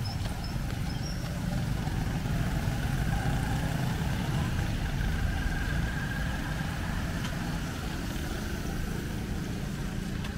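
Steady low rumble of street traffic, with car engines running and passing.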